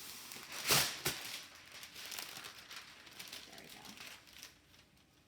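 Parchment paper crinkling and rustling as it is laid over a foil-lined baking sheet, with a loud rustle about a second in, then softer crinkling that dies away near the end.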